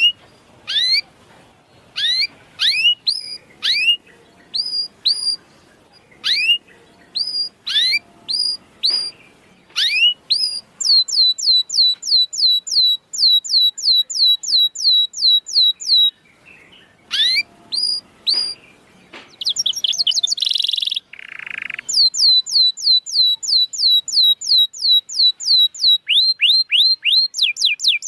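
Canary calling: separate rising whistled chirps, then fast rolling trills of rising notes at about five or six a second, with a short harsh rasp about twenty seconds in.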